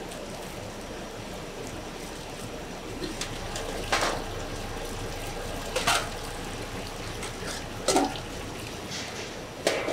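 Soy milk scooped from a large steel pot with a small metal pot and poured through a metal sieve into a plastic bag: liquid splashing and pouring. Four short, louder scoops or knocks come about two seconds apart over a steady background noise.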